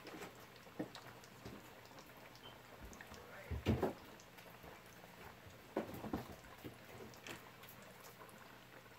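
Breaded fish deep-frying in a pot of hot oil, a steady sizzle with many small crackles. Two brief louder knocks come about three and a half and six seconds in.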